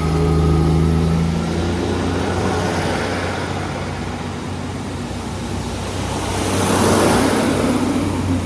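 A vehicle engine's low hum under a rushing noise that swells and peaks about seven seconds in as a vehicle passes close by.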